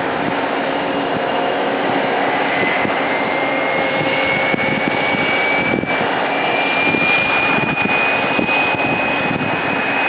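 Jet airliner engines running, a steady loud rush with a turbine whine that slowly rises in pitch.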